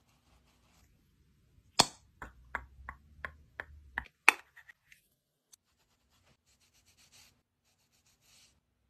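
Small clicks of makeup being handled, most likely a lip gloss tube and its applicator wand. There is one sharp click, then a quick run of about seven even clicks, another sharp click, and then faint ticks and light brushing.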